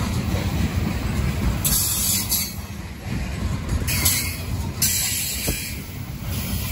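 Coal train's gondola cars rolling past close by: a steady low rumble of wheels on rail, broken by three bursts of high hissing wheel squeal, the first about two seconds in.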